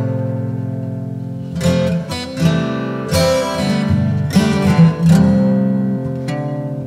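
Background music on acoustic guitar: chords struck about once a second and left to ring out between strokes.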